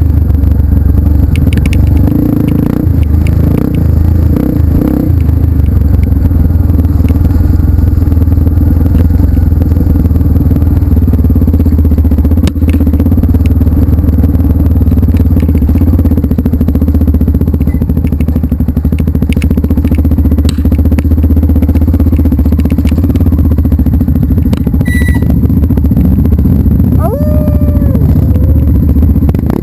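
Off-road trail motorcycle engine running steadily, a loud low rumble with some clattering.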